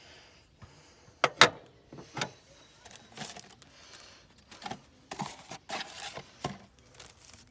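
Hands handling a small metal auto part and opening a cardboard parts box. Two sharp clicks about a second in are the loudest sounds, followed by a run of short scrapes and rustles as the box flaps are pulled open.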